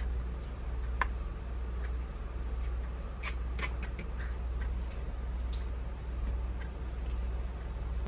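Light food-prep handling noises: a few soft clicks and taps, most of them in a cluster about three seconds in, as rice flour is spooned from its bag into a small bowl with a wooden spoon. A steady low hum runs underneath.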